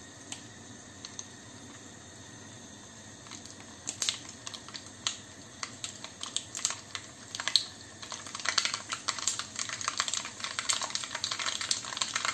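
Mustard seeds popping in hot oil in a cast-iron kadai: a few scattered pops at first, turning to rapid, irregular crackling about four seconds in and growing denser from about eight seconds. The spluttering is the sign that the seeds are done and the tempering is ready for the next ingredients.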